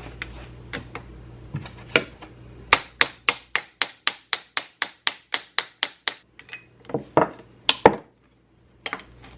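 Hammer tapping on metal engine parts: a few scattered taps, then a steady run of sharp strikes about four a second for some three seconds, then a few louder single blows.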